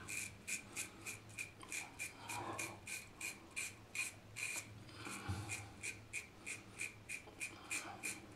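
Razorock BlackHawk single-edge safety razor scraping through lathered chin stubble in short, even strokes, about three a second, on the first pass of a shave.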